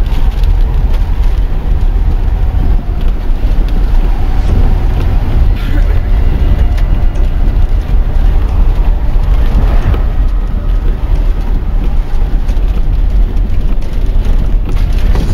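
Vehicle driving on a gravel road: a loud, steady rumble of tyre and road noise, heaviest in the deep bass.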